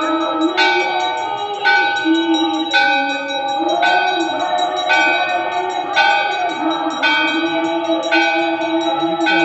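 Hindu temple bell rung for the evening aarti, struck about once a second, each stroke ringing on into the next, with voices chanting underneath.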